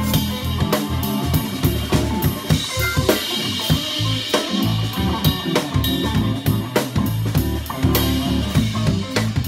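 Live funk jam band playing. The drum kit is close and loudest, with a steady pattern of kick, snare and cymbal hits over low bass notes, electric guitar and keyboard.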